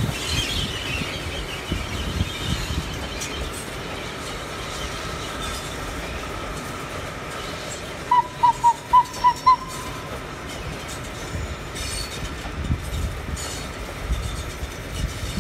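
Steam-hauled passenger train rolling past: a steady rumble and rush of noise. About eight seconds in, six short high notes in quick succession and then a brief held note ring out above it.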